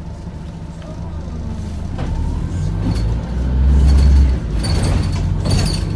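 Wright Gemini 2 hybrid double-decker bus running: a low rumble builds up and is loudest about three and a half seconds in, then bursts of hiss and rattling follow near the end.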